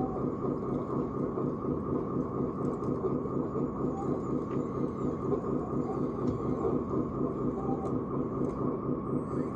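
Steady mechanical rumble with a fast, even pulsing, like a running motor or vehicle.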